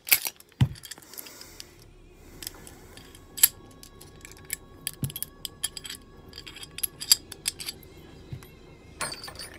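Metal clicks and clinks of a Kimber Ultra Plus CDP, a compact 1911-pattern pistol, being stripped by hand as the slide comes off the frame and the recoil spring assembly is taken out. Sharp clicks come in scattered bunches: the loudest near the start and about three and a half seconds in, with a quick rattle near the end.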